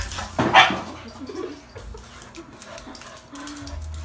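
A dog gives one loud bark about half a second in, followed by softer scattered sounds of dogs playing.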